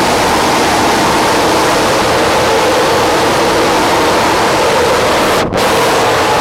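Loud steady rushing noise with faint steady tones near 500 Hz and 900 Hz, cut off for a split second about five and a half seconds in.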